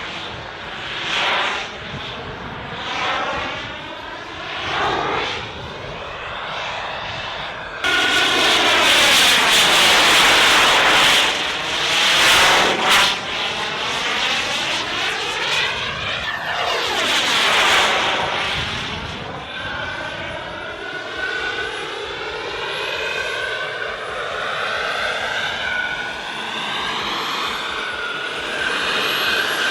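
Radio-controlled model aircraft engine flying repeated passes, its sound swelling and fading as it goes by. About eight seconds in it turns abruptly louder.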